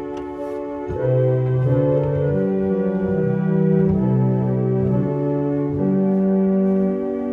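The 1890 Roques pipe organ plays full sustained chords over a bass line that moves from note to note. It grows louder about a second in as the organ builds a crescendo toward full organ.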